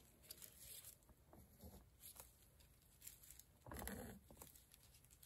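Near silence with faint scattered handling noises from a gloved hand, and a brief soft rustle about four seconds in.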